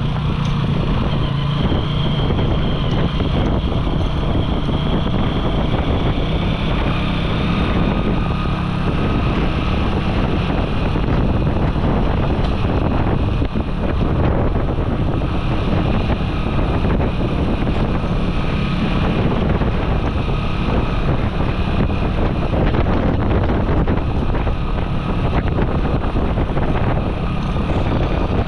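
Small motorcycle's engine running steadily under way, with wind buffeting the handlebar-mounted camera's microphone.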